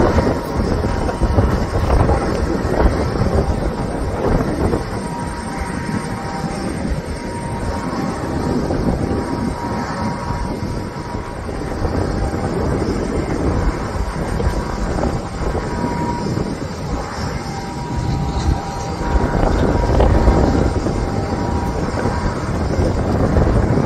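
Jet airliner engines running loud: a steady rumble with a faint whine.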